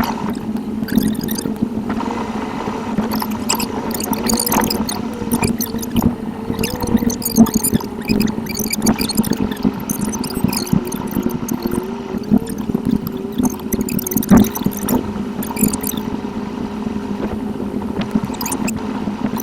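Car driving noise from a dashcam, played back sped up: engine and road noise turned into a fast, steady whir with a wavering tone and many quick clicks and squeaks.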